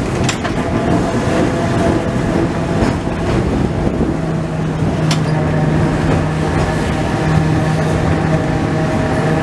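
Vintage heritage tram running along its rails, heard on board from the front platform: a steady rumble of wheels on track, with a few sharp clicks. A steady hum comes in about four seconds in.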